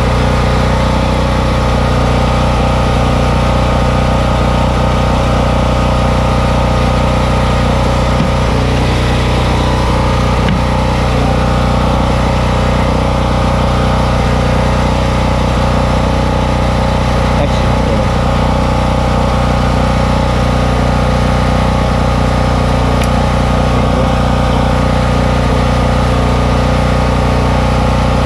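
An engine running steadily at idle: a constant low drone with an even pulse. A couple of faint clicks sound about a third of the way in.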